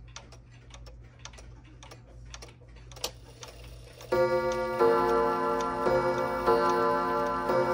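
Gustav Becker German box clock ticking steadily. After a sharper click about three seconds in, it begins its bim-bam strike on two coiled gongs: the two gongs ring alternately in pairs, two full pairs and the start of a third.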